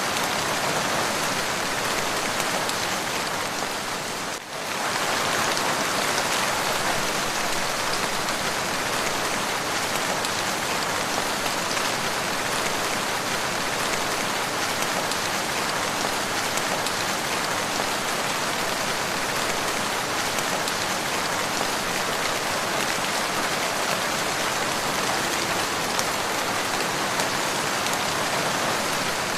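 Steady, continuous rain falling, an even hiss of many drops, with one brief dip in loudness about four seconds in.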